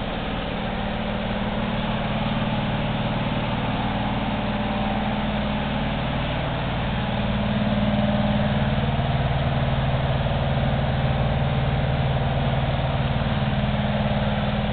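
Steady drone of running machinery, like an engine idling, with a low hum under a hiss. It grows slightly louder about halfway through.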